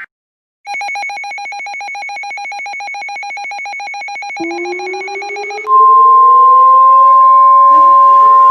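Layered emergency alert sounds. First comes a fast-pulsing electronic alarm tone. About four seconds in, an air-raid siren starts winding up. From about halfway, a loud steady high tone sounds over it, with more sirens winding up near the end.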